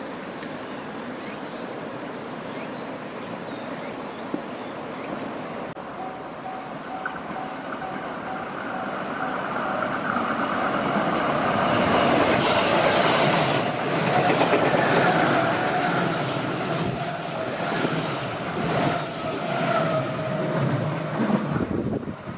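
JR West 221 series electric train approaching and running past close by, its wheels rumbling and clattering over the rails. The sound builds from a few seconds in to a peak about halfway through, then stays loud and uneven. A steady whine runs through most of the pass.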